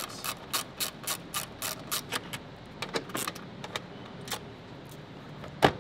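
Hand ratchet clicking in an even run, about three clicks a second, as a fastener on the plastic intake air duct is loosened, then scattered clicks and knocks of the plastic duct being handled, with one loud sharp click near the end.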